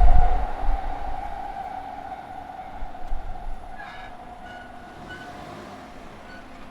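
A JR Tokaido Line train running past and moving away: its low rumble and a steady hum fade out over several seconds. A few short, faint high tones sound about halfway through.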